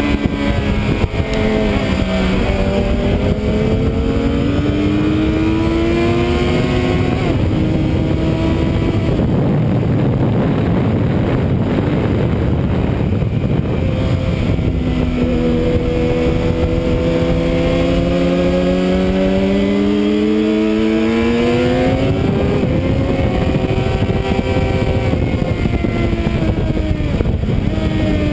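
Suzuki sport motorcycle engine heard from on board at speed on a track, its pitch climbing and dropping again and again as the rider works the throttle and changes gear. Through the middle stretch a heavy wind rush on the microphone mostly covers the engine.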